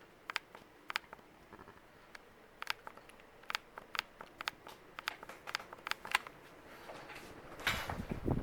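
S.M.C. UB42 ceiling fan running on high speed: scattered light clicks and ticks, one or two a second at no steady spacing, over a faint steady hiss. Near the end a rush of air on the microphone comes in and grows louder.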